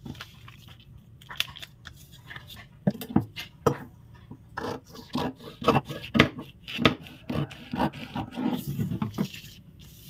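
Large tailor's shears cutting through stiff kraft-paper pattern: a run of sharp snips, most of them in the middle of the stretch, with the paper rustling and scraping as it is slid across a wooden table.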